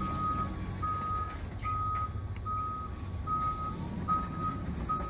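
Clark stand-up forklift's warning beeper sounding repeatedly as the truck moves, short beeps of one pitch a little more than once a second, over a steady faint tone and low rumble.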